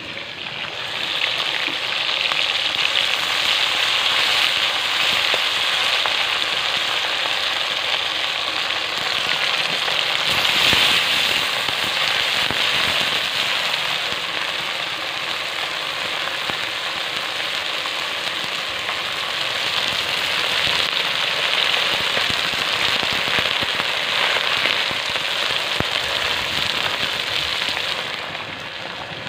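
Small turmeric-coated fish frying in hot oil in a wok: a loud, dense sizzle full of crackling and spitting. It swells up about a second in and eases off near the end.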